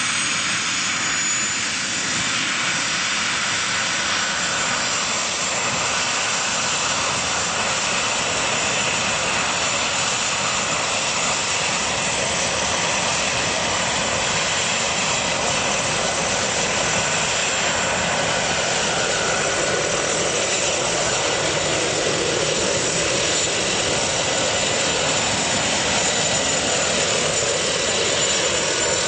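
Jet turbine of a scale Vario Lama radio-controlled helicopter running steadily, a thin high whine over a dense rush, while the model lifts off and flies.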